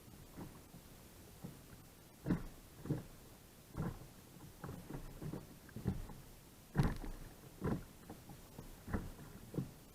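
Water splashing and slapping at a kayak in short, irregular splashes, about one a second.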